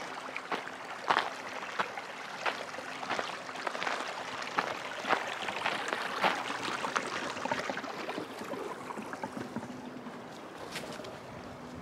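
A hiker's footsteps on a snowy trail at a steady walking pace, about one and a half steps a second, over the steady rush of a partly frozen creek flowing alongside. The steps thin out after about eight seconds.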